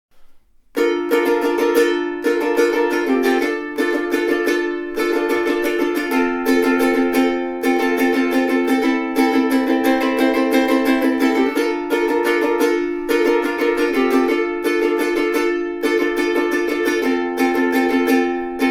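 Millar SP-210LL all-solid long-neck soprano ukulele strummed, chords ringing in a steady rhythm of repeated strokes that starts about a second in, the chord changing every second or two.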